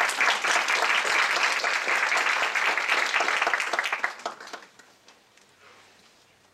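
Audience and panelists applauding, a dense round of hand clapping that fades away after about four seconds.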